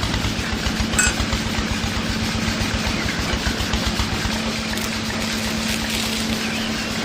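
A motor running steadily, with a fast low pulsing and a steady hum, and a short click about a second in.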